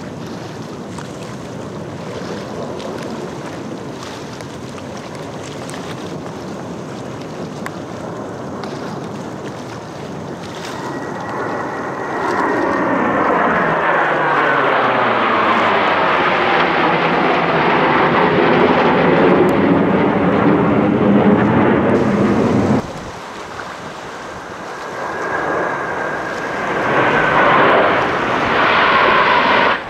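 Blue Angels F/A-18 jets flying over in a four-jet diamond formation: a roar over wind on the microphone swells to a loud jet noise with a falling, sweeping pitch as they pass low overhead, cutting off abruptly about two-thirds of the way through, then another jet roar builds near the end.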